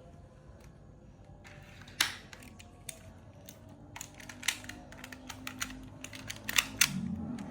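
Hard plastic toy parts of a Hot Wheels playset clicking and clacking as they are handled, with irregular sharp clicks, one loud one about two seconds in and a quicker cluster near the end.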